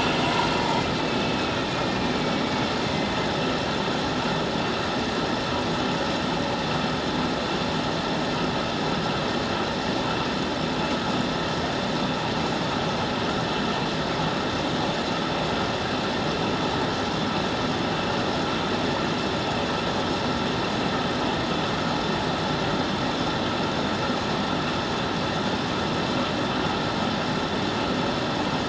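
Hoover Nextra HNL662 front-loading washing machine running at a steady speed: an even mechanical drone with several steady whining tones, unchanging throughout.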